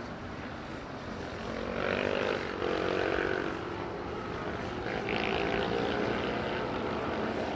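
Vintage racing motorcycle engines running on the track at a distance. Their pitch rises as they accelerate, about two seconds in and again around five seconds, over a steady background hiss.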